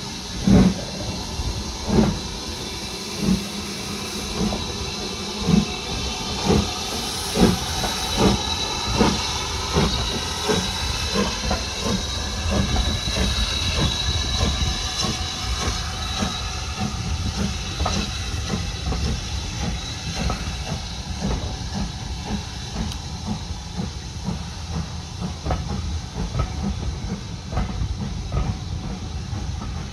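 Steam locomotive starting away with a train: its exhaust beats come about a second and a half apart at first, then quicken and grow softer as it gathers speed. A steady hiss and the rumble of the train rolling on the rails run underneath.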